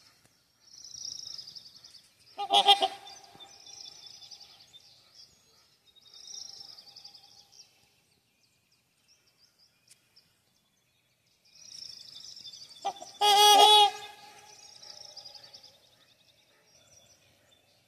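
Swans calling on the water: one short, loud honk a couple of seconds in, then a longer, louder run of honks about three-quarters of the way through, with quieter calls between.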